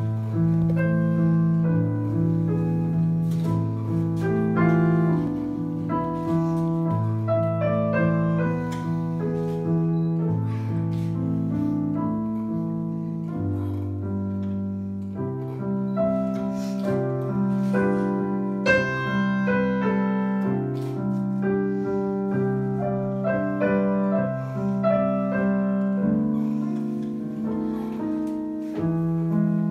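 Piano playing a steady instrumental introduction: held chords over an evenly repeating low bass line.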